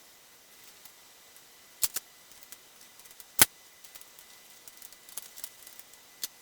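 Scattered sharp metallic clicks and clinks of hand tools and parts being handled while a dash is fitted. There is a pair about two seconds in and one louder click just past the middle.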